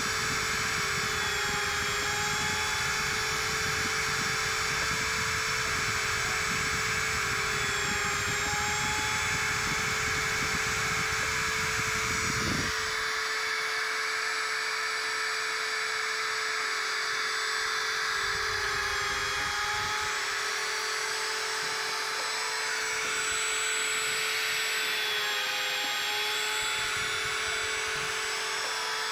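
DIY CNC drilling machine running while drilling holes in a printed circuit board: a steady high whine that shifts slightly in pitch every few seconds. A low rumble underneath drops away about halfway through.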